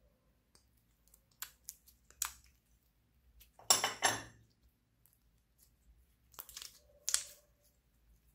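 Clear green slime being pulled out of a thin plastic pineapple-shaped tub and handled: a few sharp clicks and crackles of the plastic, a louder noisy burst lasting about half a second near the middle, and another run of crackles near the end.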